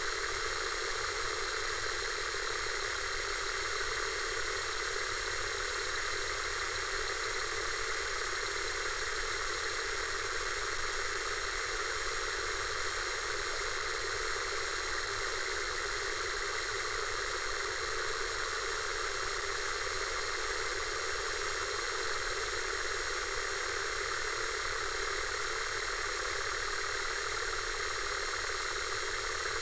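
Television static: the steady hiss of electrical interference from a bad signal, unchanging throughout, with faint steady tones running through the noise.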